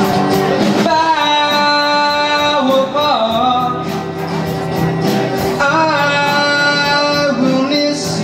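A live song sung over guitar accompaniment: a singer holds two long, wavering notes, the first starting about a second in and sliding down near the three-second mark, the second starting a little before six seconds in.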